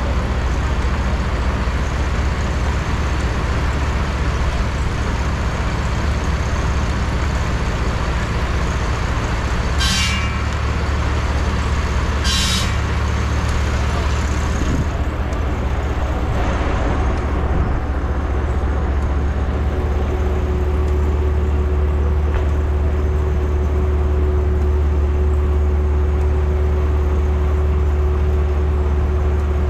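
Steam engine driving a sawmill, running with a steady low rumble and noise. Two short, sharp blasts come about ten and twelve seconds in, and a steady hum comes in about two-thirds of the way through.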